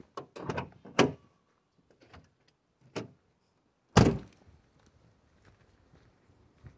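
Vehicle doors being worked: a few clicks and a knock in the first second, another thud about three seconds in, then a loud door slam about four seconds in.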